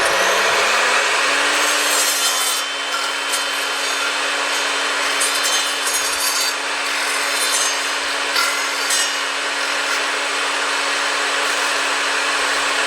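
Sliding chop saw running, its blade skimming across the floor of a cross halving joint in rough-sawn timber to smooth it ("French planing"): a steady motor whine that rises as the saw comes up to speed in the first second or so, under a continuous rasping hiss of blade on wood.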